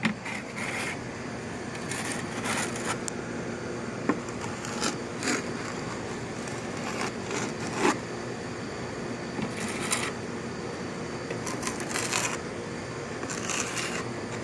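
Scattered short scrapes and rustles, one every second or two, over a steady background hum.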